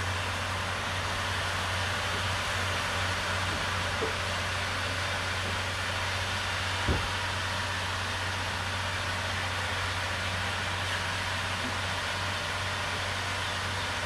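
Diesel truck engine idling steadily with a low hum, and a single sharp knock a little under halfway through.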